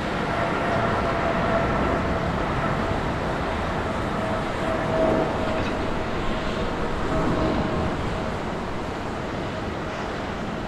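Boeing 777-200ER's twin GE90 turbofans at takeoff thrust as the airliner lifts off and climbs out: a steady jet roar with a held humming tone, easing slightly near the end.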